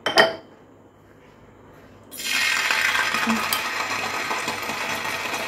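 A sharp clink right at the start, then about two seconds in a steady crackling sizzle starts abruptly: olive oil heating in a frying pan.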